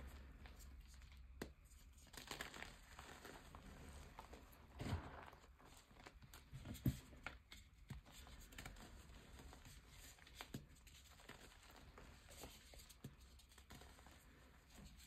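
Fingers crushing and crumbling chunks of reformed gym chalk into powder: soft scattered crunches and gritty crackles, with a couple of louder crunches about five and seven seconds in.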